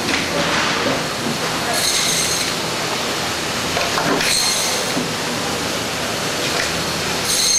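Food-processing machinery running with a steady mechanical noise and low hum, with a high-pitched metallic squeal about two seconds in and again near the end.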